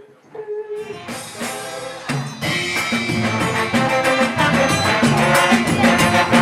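Live band music: a held sung note ends, then about a second in the full band comes in, with drums joining and the music getting louder.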